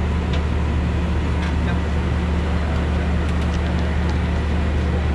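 Diesel locomotive idling with a steady low hum, heard close up at the coupling, with a few faint clicks from work on the coupler and hoses.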